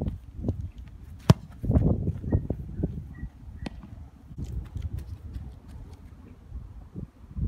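A goalkeeper's kickout: quick footsteps on grass in a two-step run-up, then a single sharp strike of boot on a Gaelic football about a second in, the loudest sound. Softer footfalls follow over a steady low rumble.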